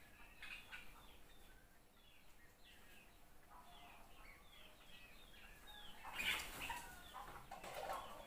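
Chicks peeping faintly in short, falling chirps, over and over, with a louder flurry of chicken wing flapping about six seconds in and again near the end.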